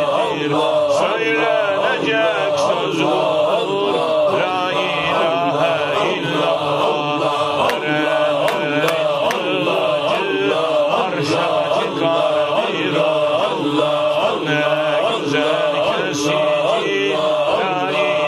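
A group of men's voices chanting "Allah" together over and over in a steady, repeating rhythm: Naqshbandi Sufi zikr.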